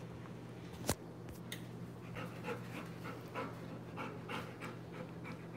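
Bernese mountain dog panting, a quick run of breaths at about three a second, over a low steady hum. A single sharp click comes about a second in.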